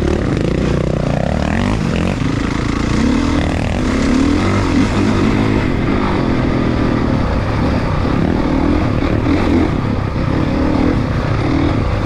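Single-cylinder four-stroke dirt bike engine on a trail ride, its pitch rising and falling again and again as the throttle is opened and closed.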